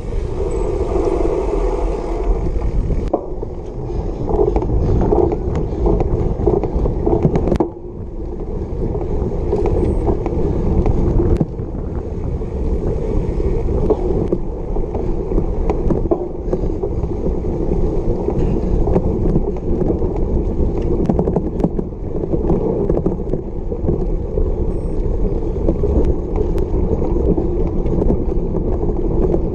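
Steady wind rush and rumble on the microphone of an action camera carried on a cyclocross bike ridden fast over bumpy grass, with occasional knocks and rattles from the bike.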